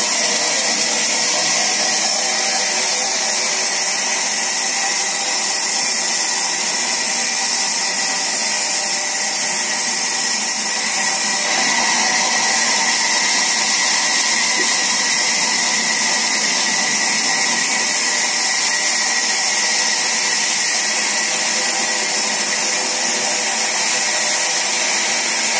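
Sawmill saw running steadily, a continuous machine noise with a faint high steady whine.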